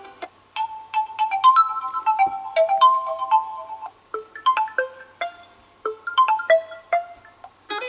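Realme C21y built-in ringtone playing: a melody of short, separate notes that each start sharply and fade, with a brief lull about four seconds in. Near the end it gives way to the next, fuller ringtone.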